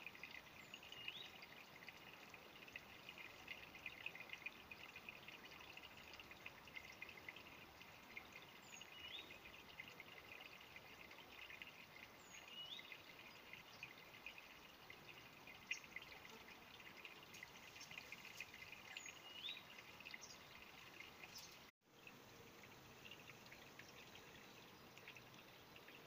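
Faint trickling and gurgling of a small, shallow woodland stream, with a bird giving a short rising chirp four times, several seconds apart. The sound cuts out for an instant near the end.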